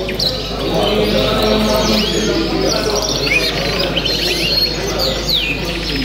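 Many caged canaries chirping and calling at once, with short, quickly rising and falling chirps scattered throughout. People talk in the background underneath.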